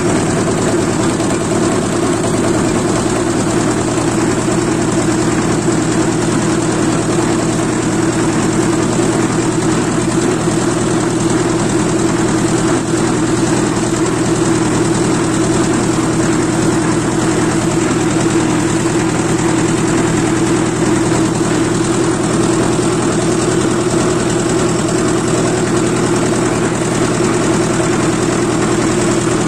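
Tractor engine running at a steady speed while driving, a constant drone that neither revs up nor slows.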